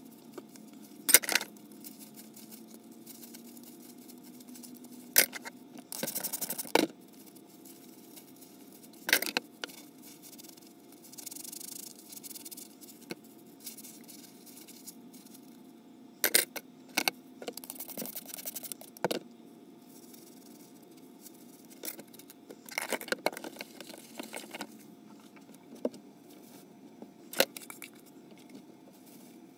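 Dishes being handled during hand washing and drying: scattered sharp clinks and knocks with short rustling scrapes, about a dozen spread through the half minute, over a faint steady hum.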